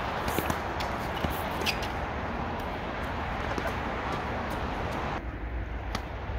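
A few sharp tennis ball strikes off a racket, spaced a second or more apart, over a steady rushing noise that drops away about five seconds in.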